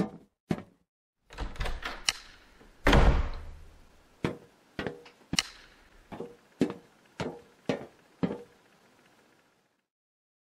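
A few sharp clicks and a heavy thunk with a low boom, then a run of about eight sharp knocks spaced a little over half a second apart, each with a short ring, stopping abruptly.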